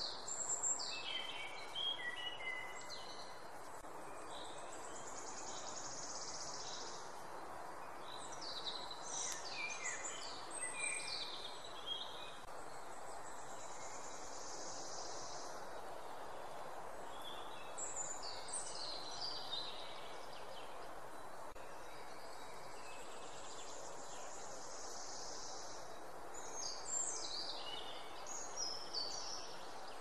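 Songbirds singing short phrases of chirps and quick falling notes, a few seconds each with pauses of several seconds between, over a steady outdoor background hiss.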